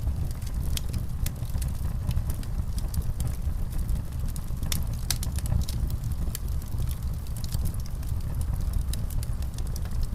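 Wood fire in a fireplace crackling, with many irregular sharp crackles and pops over a steady low rumble.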